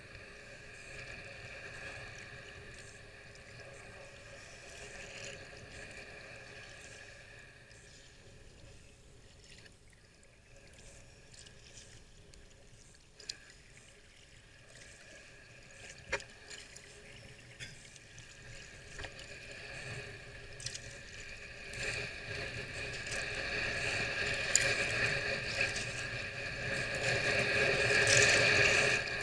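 Sea kayak paddle strokes splashing and water trickling and lapping against the hull as the kayak moves through shallow water, with a few sharp clicks midway. The splashing grows louder over the last several seconds.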